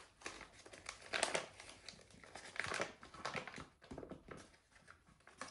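Paper flour bag being unfolded and opened by hand, crinkling in irregular rustles, loudest about a second in and again near three seconds.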